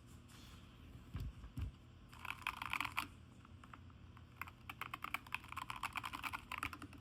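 Keys of a Keychron K2 HE magnetic-switch keyboard being pressed in quick runs: a short burst of clicking a couple of seconds in and a longer run through the second half. A couple of low thumps come about a second in, from the keyboard being handled.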